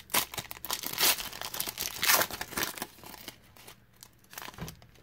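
Foil wrapper of a Panini Contenders Draft Picks trading-card pack being torn open and crinkled by hand. It comes in several quick rips over the first three seconds, the loudest about one and two seconds in, then fades to faint rustling as the wrapper is peeled off the cards.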